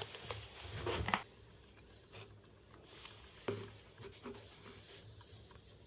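Hands spreading wood glue over cut pieces of birch plywood, a soft scratchy rubbing, with a few light knocks as the pieces are handled on the workbench.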